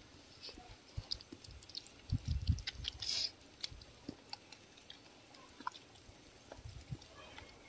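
Hands squishing and kneading masala marinade into raw chicken pieces on a plastic sheet: faint wet squelches and small clicks, with a few soft thumps a little after two seconds and a brief rustle about three seconds in.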